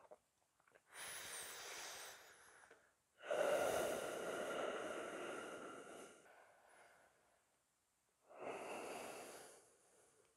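A person breathing deeply and audibly: three slow breaths, the second, about three seconds in, the longest and loudest.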